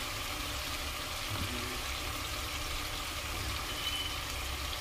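Spiced onion-tomato masala sizzling steadily in hot oil in a frying pan while a wet white paste is scraped in from a bowl.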